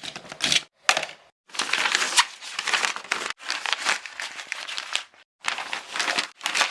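Paper crumpling and crinkling in irregular bursts, with brief silent gaps between them.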